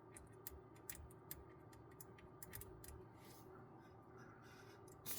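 Faint, irregular clicks and ticks of a small hand tool tapping and scraping against the metal and plastic of a 3D printer hotend as it is worked into a flat-head bolt.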